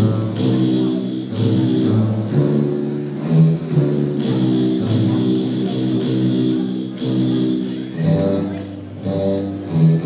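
Begenas, the large Ethiopian Orthodox frame lyres, plucked together with a group of voices singing a mezmur in slow, held notes.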